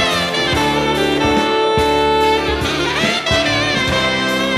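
Saxophone playing a jazzy melody over a band backing of drums and bass, with scooping pitch bends and one long held note in the middle.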